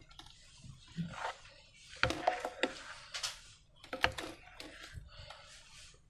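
Hands working slime, with irregular wet squelches and a few sharp clicks, the loudest about two and four seconds in.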